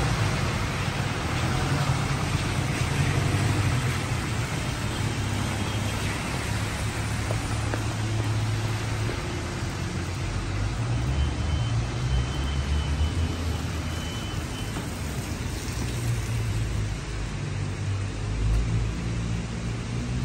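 Heavy rain on a city street: a steady hiss of rain and tyres on the wet road, with the low rumble of passing cars and other traffic.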